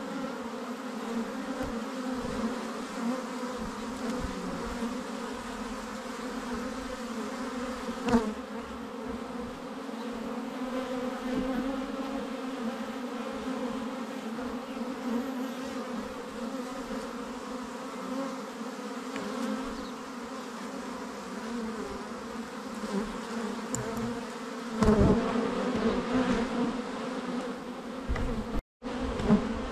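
Honeybees buzzing in front of their hive entrance: the steady, low drone of many bees in flight at a busy hive. It swells louder twice, and cuts out for a moment near the end.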